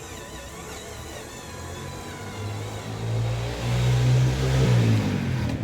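Remote-control dump truck running, its motor sound swelling louder from a little over two seconds in, then falling in pitch near the end.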